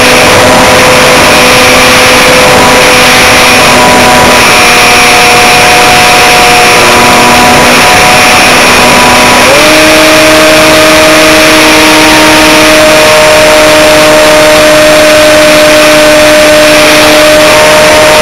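Aerobird Extreme RC plane's electric motor and propeller buzzing loudly at a steady pitch over a constant hiss. The pitch sits lower at first and then rises quickly about nine and a half seconds in, as the throttle is opened, holding at the higher pitch after that.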